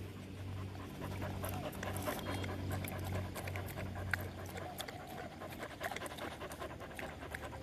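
A dog lapping water from a small plastic container, its tongue making many quick, irregular wet clicks.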